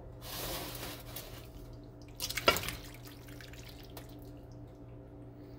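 Penne in tomato-cream sauce with sliced smoked sausage tipped from a pan into a glass baking dish, wet and plopping, with a sharp clatter about two and a half seconds in. A steady low hum runs underneath.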